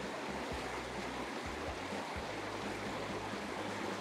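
Steady, even rush of a flowing river.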